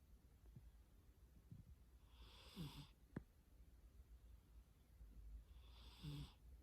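A sleeping cat snoring faintly: two soft snoring breaths about three and a half seconds apart, each a low rasp under a breathy hiss, with a brief click just after the first.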